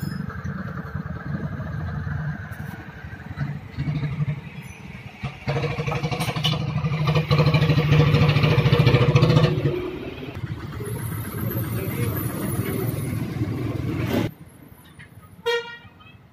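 A motor vehicle engine running close by with a fast, even pulse. It grows louder for a few seconds in the middle, then stops abruptly near the end.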